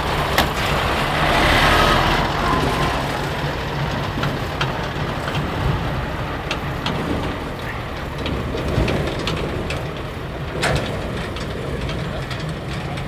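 Heavy diesel truck engine running steadily with a low rumble, with a few sharp clicks and knocks over it, one about half a second in and the loudest near the end.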